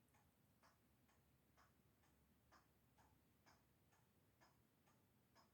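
Near silence with a faint, even ticking, about two ticks a second.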